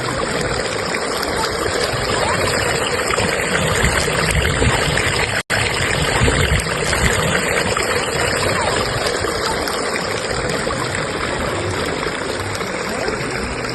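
Fast-flowing stream current rushing steadily. The sound cuts out for an instant about five and a half seconds in.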